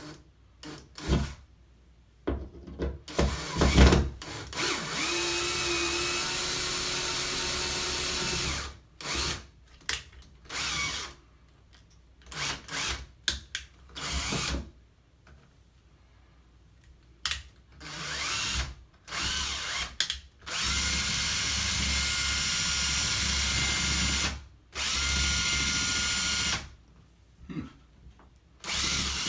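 Cordless drill driving drywall screws through the drywall into a wooden backing block behind the hole. It runs in several stretches of steady motor whine a few seconds long, each rising in pitch as it spins up, with short trigger blips and clicks between.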